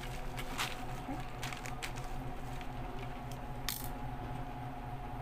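Bubble-wrap packaging crinkling and crackling as it is pulled off a plastic flexible-leg tripod, with scattered sharp clicks; one louder crackle comes a little past halfway.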